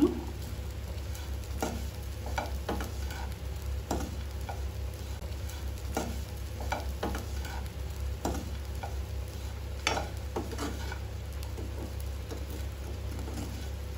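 Steel spoon stirring diced potatoes and grated dry coconut in a nonstick kadai, scraping and tapping the pan irregularly about once a second, over the low sizzle of the potatoes shallow-frying in a little oil.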